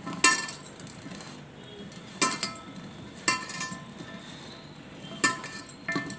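Stainless steel bowl clinking and ringing as raw mango pieces and spice powders are mixed in it by hand: five sharp knocks at uneven intervals, each with a short metallic ring.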